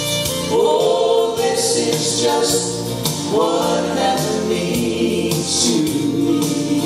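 Gospel vocal trio, a man and two women, singing in harmony with held notes over instrumental backing.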